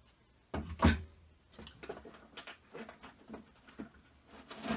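Hard items set down on a table, with a sharp knock just under a second in, then scattered clicks, scrapes and cardboard rustling as hands reach into a cardboard box, with another knock near the end.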